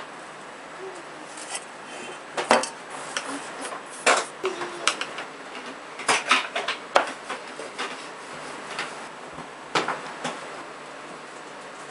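Irregular sharp clinks and knocks of metal kitchenware: first a round cake tin being handled, then a kitchen knife tapping and scraping on the surface as it cuts around a paper template on a set cheesecake.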